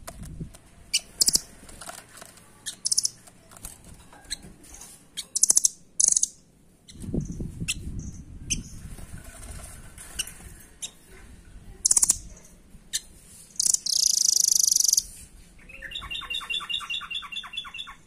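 Caged blue nuthatch (rambatan doraemon) calling: short, sharp high notes scattered throughout, then a loud, fast high trill lasting about a second and a half near the end, followed by a rapid series of lower repeated notes. A low rustle comes about seven seconds in.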